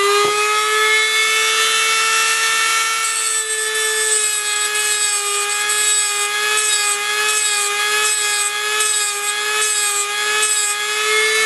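Eastwood tungsten grinder's motor whining at a steady high pitch, settling at full speed in the first moment. From about three seconds in, an on-and-off high hiss joins it as a 3/32 tungsten electrode is ground against the spinning disc.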